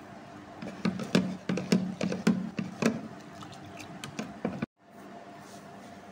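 Steel spoon stirring sattu flour and water in a plastic jug, clinking against its sides in quick ticks about three times a second. The ticks stop abruptly about two-thirds of the way through, leaving a faint steady hum.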